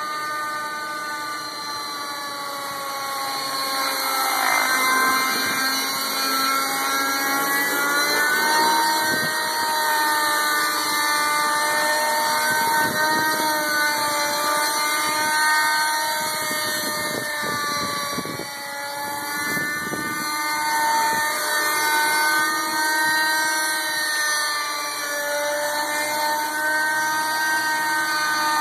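O.S. .37 two-stroke glow (nitro) engine of a JR Venture 30 radio-controlled helicopter running at flying speed, a high whine. Its pitch climbs a few seconds in, then rises and falls with the throttle as the helicopter hovers.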